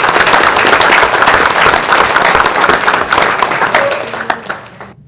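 Audience applauding at the end of a speech, a loud, dense patter of many hands that cuts off suddenly near the end.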